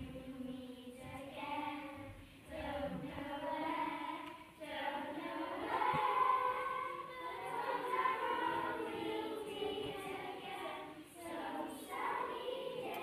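A group of children singing a song together, in long phrases with short breaks between them.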